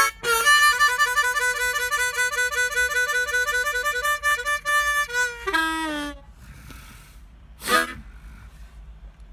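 Blues harp (diatonic harmonica) playing a fast warbling, pulsing note for several seconds, then bending down in pitch and stopping about six seconds in; one short blast follows near the end.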